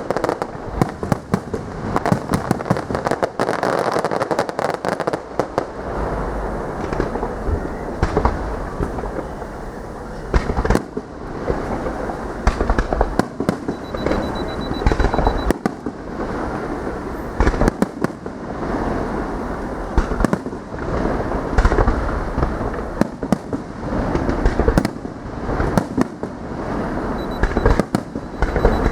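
Fireworks display: a dense, continuous run of sharp bangs and crackling, with heavy low booms of shell bursts every few seconds.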